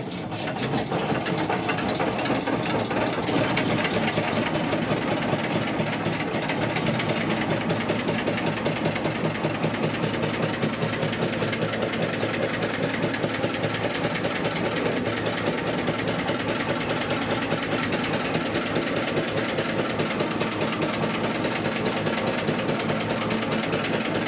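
Small inboard boat engine with a large flywheel, started by hand, comes up over the first few seconds and then runs steadily with a fast, even beat.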